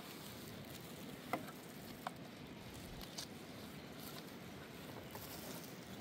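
Dishes being hand-washed in a metal basin: low, steady water splashing with a few faint clicks of crockery and metal.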